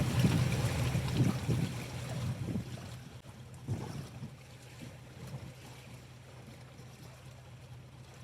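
A steady engine hum under wind buffeting the microphone. Both die down about three seconds in, leaving a faint, even wash of wind and water.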